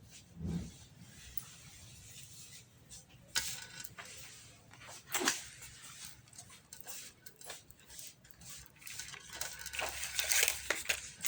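Kitchen clatter of dishes, pots and utensils being handled: scattered clicks and knocks, two sharper bangs a few seconds in, and a busier run of clattering near the end.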